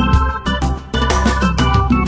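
Background music with a beat, keyboard and drums, with no speech.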